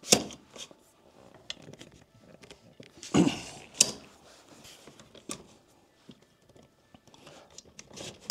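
Metal clacks and rattles from a laptop side table's height-adjustable legs as they are pushed up a step. There is a sharp clack at the start, two more knocks a little after three seconds in, and light ticks and rattles between.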